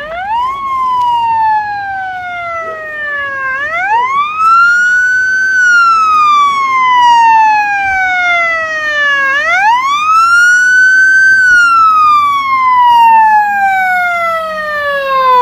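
Ambulance's electronic siren on wail: a loud tone rising quickly, then falling slowly in pitch, repeating in three long cycles, growing louder as the ambulance approaches.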